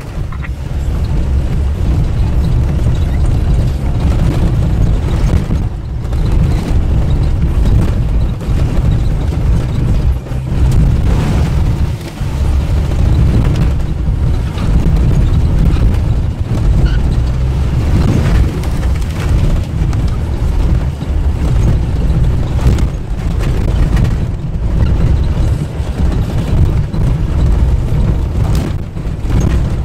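Vehicle driving on a rough dirt track, heard from inside the cabin: a loud, low rumble of engine and tyres that rises and falls as it goes over the bumps.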